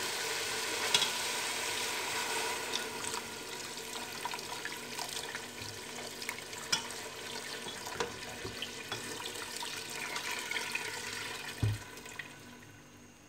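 Water poured from a jug into a hot pressure cooker of fried beef and spices, splashing and bubbling in the pot, with short clinks of a metal spatula against the pot; it fades away near the end.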